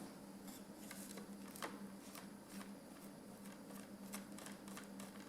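Faint, irregular light scratching and ticking as a circuit board is scrubbed clean of soldering flux with rubbing alcohol, over a faint steady hum.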